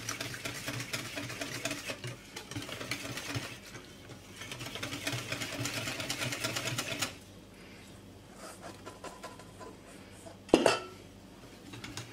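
Wire whisk beating a runny flour-and-milk batter in a glass bowl: a rapid scraping clatter of the wires against the glass. It stops about seven seconds in, and a single sharp knock comes near the end.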